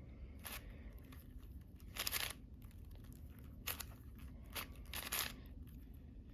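Plastic magnetic speed cube being turned by hand: a handful of short, irregular clacks as its layers are twisted and snap into place.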